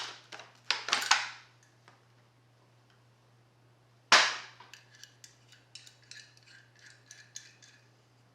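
Metal clanks and clicks from handling a car door-hinge spring compressor tool as it is opened up: short scrapes near the start, one sharp loud metal clank about four seconds in, then a run of light metallic ticks.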